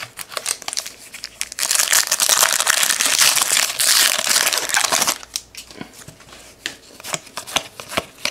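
Plastic wrapper of a trading-card pack crinkling and tearing as it is opened, loudest for about three seconds in the middle, followed by light clicks and flicks of the cards being handled.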